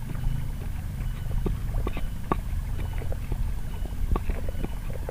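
Wooden pestle (ulekan) grinding kedondong leaves for sambal in a black cobek mortar: the pestle scrapes and crushes the leaves with irregular knocks against the mortar, several a second.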